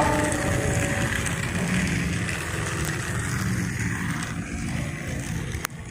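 A train whistle's chord ends about a second in, followed by a steady rumbling train run, with a click near the end.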